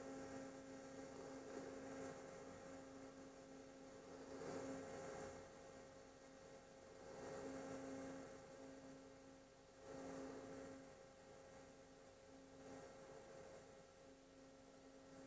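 Very faint, steady hum of a TIG welding arc laying a hot pass on steel pipe, with three soft hisses spaced a few seconds apart.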